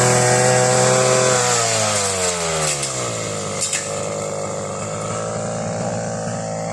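Grass-cutting machine's small engine running fast, then throttled back about a second and a half in; its pitch falls over a second or so and settles into a lower, steady idle. A couple of light clicks come near the middle.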